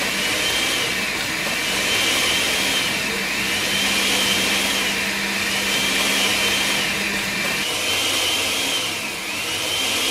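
Electric kitchen blender running steadily, blending salsa, with a high tone rising and falling over it about once every second and a half.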